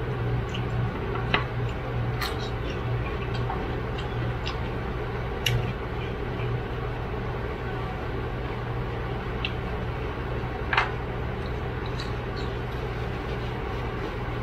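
Steady low hum of an electric box fan, with a few sharp clicks and cracks as steamed blue crab shells are broken and picked apart by hand.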